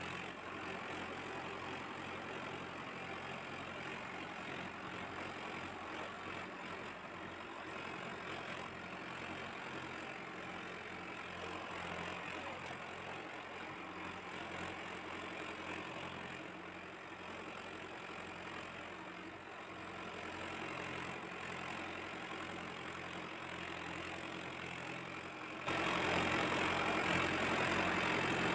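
Steady tractor-engine idling sound, played for a toy tractor rather than made by a real engine. It jumps louder about three seconds before the end.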